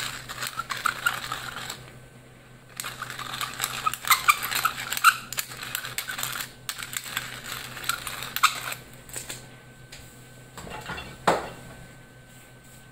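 Wooden pepper mill being twisted, its grinder giving off rapid gritty clicking in two bouts with a brief pause between. A single sharp knock follows near the end.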